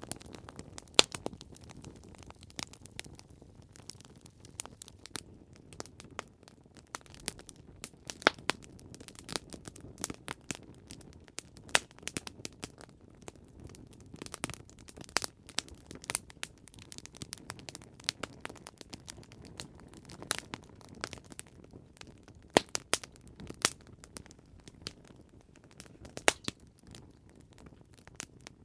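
Wood fire crackling: irregular sharp pops and snaps, several loud ones scattered throughout, over a low steady rush of flames.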